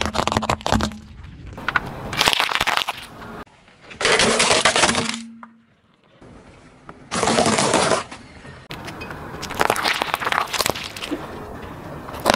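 A car tyre rolling over and crushing objects: bursts of sharp cracking, popping and crunching, starting with a pile of gel water beads bursting under it. There are several separate bursts with short breaks between them.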